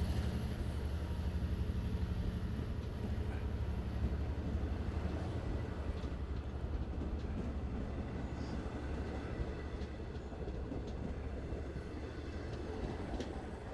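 EMD DE30AC diesel-electric locomotive hauling a passenger train: a steady low engine drone over the rumble of the rolling train, slowly fading as the train moves on.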